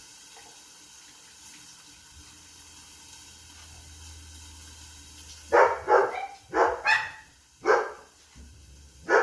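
A dog barking, about five loud barks in quick succession starting a little past halfway, over a faint steady hiss.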